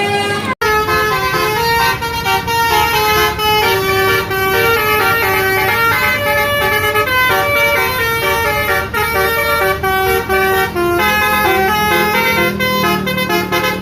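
Bus's basuri telolet horn playing a slow multi-note melody, one held note after another. The sound cuts out briefly about half a second in.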